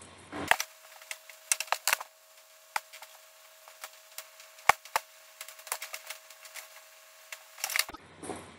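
Irregular sharp knocks and clicks, about a dozen, loudest about halfway through, from handling and moving in strapped sandals.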